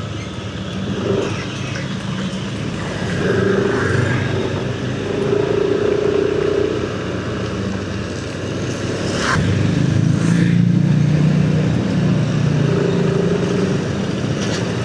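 A motor vehicle's engine running close by in road traffic, heard from a moving motorcycle, with a steady hum that grows louder about ten seconds in.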